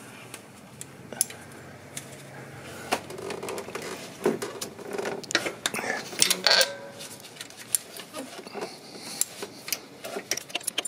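Irregular metallic clicks and clinks of a socket wrench working on the alternator's lower mounting bolt as it is undone.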